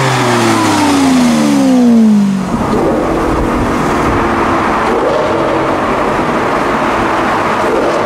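Lamborghini Aventador's V12 through a Novitec exhaust passing by, its pitch falling steeply for the first two and a half seconds. It then gives way to the V12 heard from inside the cabin in a road tunnel, with road and tyre noise and the engine pitch rising a few times.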